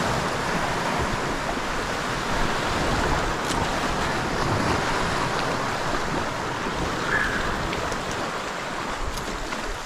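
Steady wash of sea water and wind around a small boat, with wind buffeting the microphone.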